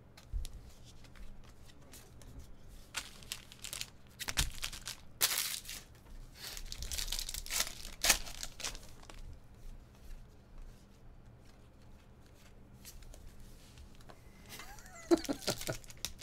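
A foil trading-card pack wrapper being crinkled and torn open by hand, in irregular bursts of crackling that are busiest in the first half.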